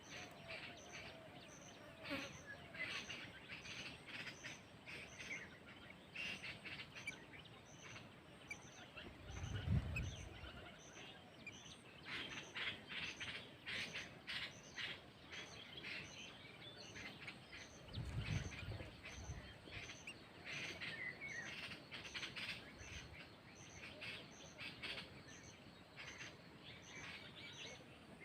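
Birds chirping and calling in many quick, short notes, with a faint high tick repeating about once a second underneath. Two brief low rumbles come about ten and eighteen seconds in.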